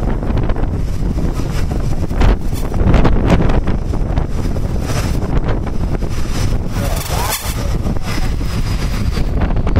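Heavy wind buffeting the microphone, over the distant rushing of a jet aircraft flying toward the ship; a faint high engine whine comes in from about halfway and grows near the end as the jet closes.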